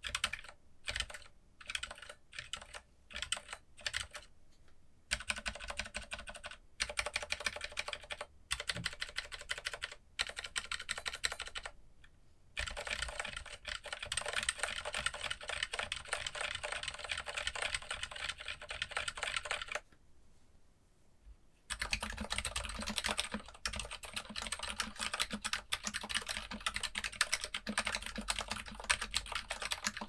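Gateron Silent Yellow silent linear keyboard switches being pressed: separate key presses about twice a second at first, then fast repeated pressing of a few keys, a brief pause near 20 seconds, then continuous two-handed typing.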